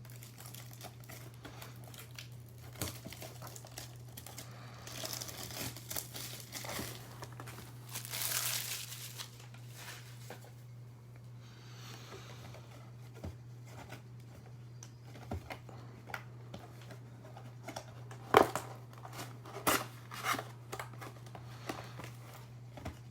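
Crinkling and tearing of the plastic wrapping on a trading card box and its packs as they are opened by hand, with a longer stretch of rustling about a quarter of the way in and a few sharp clicks near the end.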